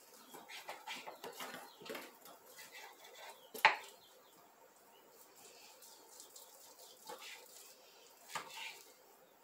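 Knife cutting raw beef into chunks on a wooden cutting board: soft slicing and handling noises with light knocks, and one sharp knock on the board about four seconds in.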